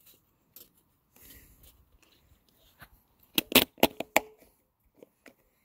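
A pleated paper oil filter element is handled and pressed down into a metal oil filter housing: faint rustling, then a quick run of about five sharp clicks and knocks about three and a half seconds in.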